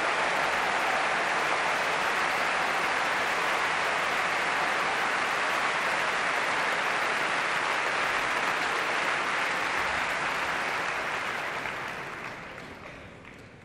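Concert hall audience applauding steadily, the applause dying away over the last couple of seconds.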